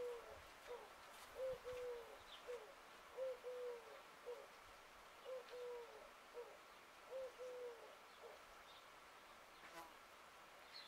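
A dove cooing a repeated three-note phrase, two notes then a shorter one, about five times, stopping about eight seconds in. A faint steady hum sits beneath it.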